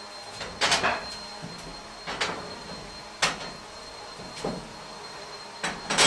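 Wood cookstove being loaded: the cast-iron stove lid, handled with a lid lifter, and split firewood clank and knock at the firebox. About five separate sharp clanks, the loudest less than a second in.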